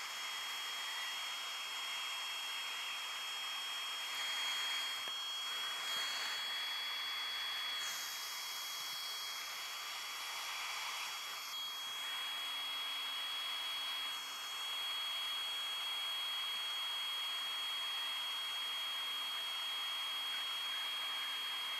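Hot air rework station blowing: a steady rush of hot air with a thin, steady high whine over it.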